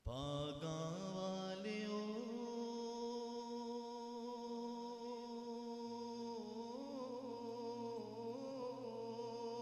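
A man's voice on a sound system begins a long, held chanted note of zikr. The pitch slides up at the start and then holds steady, wavering slightly about two-thirds of the way in.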